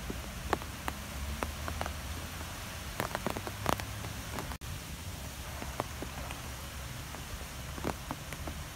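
Rain falling steadily, with scattered individual drops tapping sharply close by over a low rumble. The sound cuts out for an instant about halfway through.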